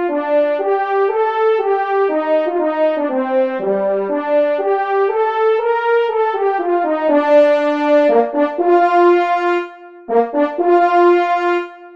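Solo French horn, in notation-software playback, playing an unaccompanied melody of separate held notes. It swells to a loud passage about seven seconds in, then breaks into short detached notes with brief rests around ten seconds in and again near the end.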